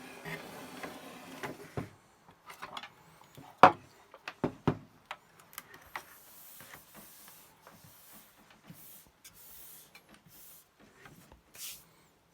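Plastic and metal parts of a Commodore MPS-801 dot-matrix printer being handled during reassembly: scattered sharp clicks and knocks, one much louder than the rest about three and a half seconds in, with rustling at the start and a run of short hisses in the middle.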